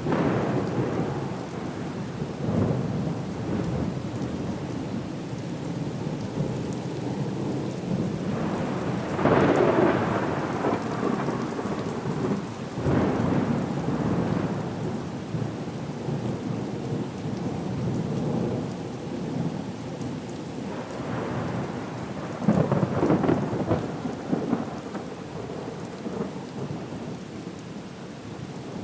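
Storm soundscape: steady heavy rain with rolling thunder that swells up several times, loudest about a third of the way in and again near the end.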